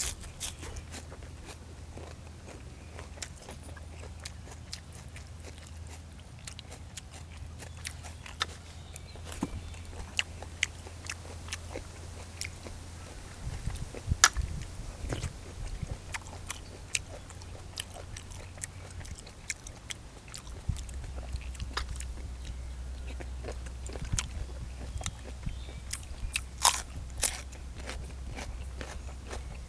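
A person chewing and crunching food close to the microphone, with many scattered sharp clicks; the loudest comes about halfway through and a few more come near the end. A steady low hum sits underneath.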